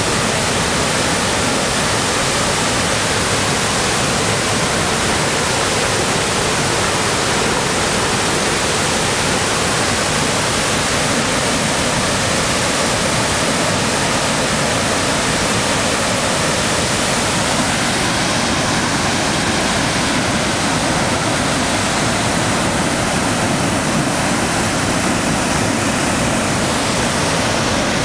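High Falls of the Pigeon River, Minnesota's highest waterfall, pouring in heavy flow: a loud, steady rush of falling water.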